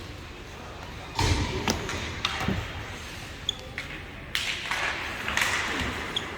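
Ice hockey play in a rink: a thud about a second in, then sharp clacks of sticks and puck, and a burst of skates scraping the ice near the end.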